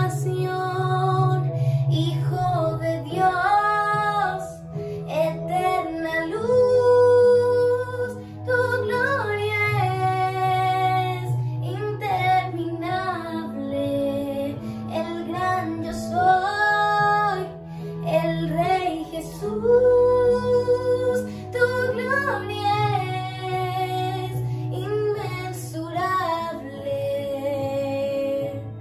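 A song: a high singing voice carries a melody with held, wavering notes over an accompaniment of long sustained bass notes.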